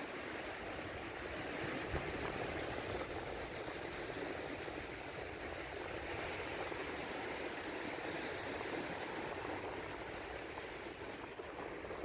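Steady rush of sea surf washing onto the beach, swelling a little in the middle and easing off near the end, with one brief dull bump about two seconds in.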